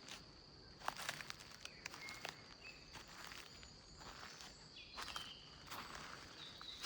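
Footsteps of a person walking outdoors at an even pace, each step a soft crunch, under a faint steady high-pitched tone and a few short chirps.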